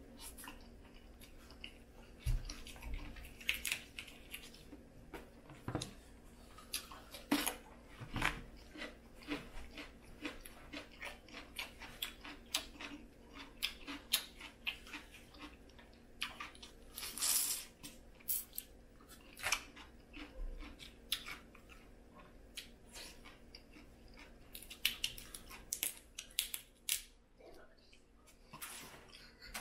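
Cajun-style boiled crawfish being cracked and peeled by hand, with chewing: an irregular run of shell crackles and clicks.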